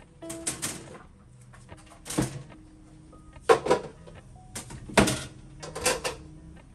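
Clear plastic food covers and containers being handled, stacked and set down on a plastic tray: a string of plastic knocks and clatters, the sharpest about three and a half and five seconds in.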